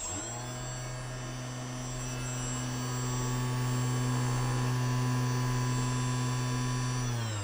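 Small brushless outrunner motor switched on: it spins up with a quick rising whine, runs at a steady whine with many overtones, and winds down right at the end.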